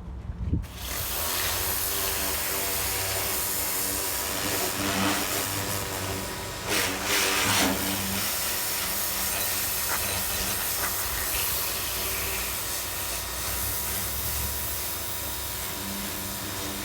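A pressure washer starts spraying about a second in, a strong steady hiss of water over a running motor hum, louder for a moment about seven seconds in.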